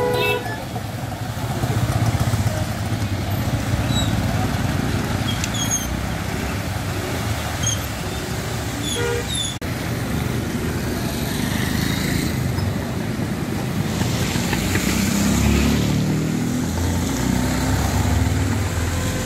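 Street traffic: engines of cars and motorcycles running and passing, with a steady low rumble that swells about three quarters of the way through, and a brief horn toot.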